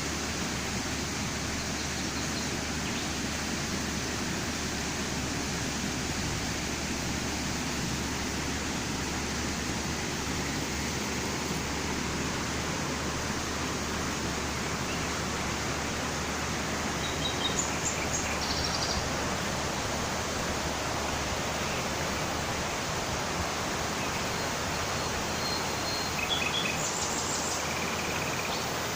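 River water rushing steadily, with a few short bird chirps about two-thirds of the way through and again near the end.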